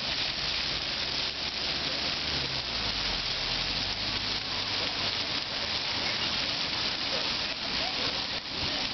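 Many ground-level fountain jets spraying up and splashing back onto wet paving, a steady hiss of falling water like rain.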